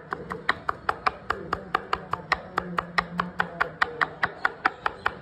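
Chef's knife rapidly mincing fresh ginger on a chopping board: an even run of quick blade knocks on the board, about six a second.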